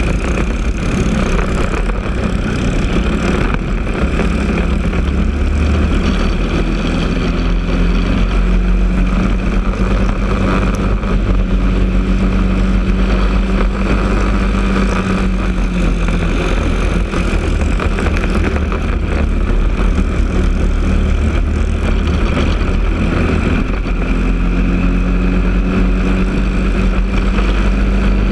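Briggs & Stratton LO206 kart engine, a four-stroke single, running hard under full throttle. Its pitch climbs in the first few seconds, holds high, dips in the second half and climbs again near the end, over a heavy wind rumble on the microphone.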